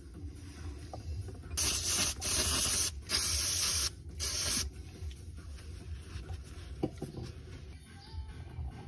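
Aerosol brake cleaner spraying in three short hissing bursts, the first and longest lasting about a second.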